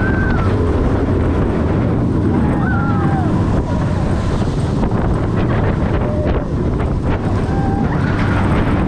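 Heavy wind rushing over the microphone as the Griffin B&M dive coaster's train runs through its course at speed, with the train's steady rumble underneath. Faint brief high cries come through the noise a few times.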